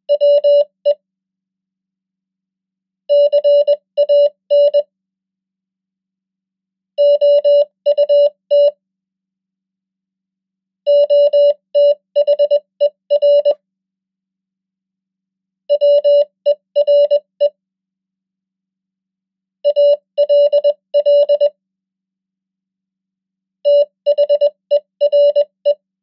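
Morse code (CW) at 20 words per minute: a steady single-pitch tone keyed into dots and dashes, one common English word about every four seconds with silence between words, here sending words such as 'we', 'can', 'out', 'other', 'were', 'all', 'there'.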